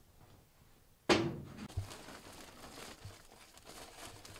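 Woven plastic sacks rustling and crinkling as they are handled, beginning with a sudden loud rustle about a second in.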